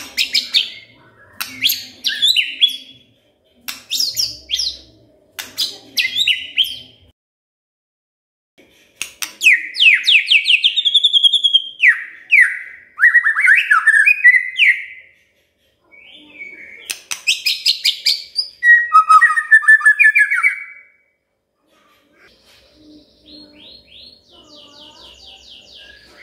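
White-rumped shama singing: loud phrases of sharp whistled notes and falling sweeps, broken by short pauses, then a fainter, fast, even trill near the end.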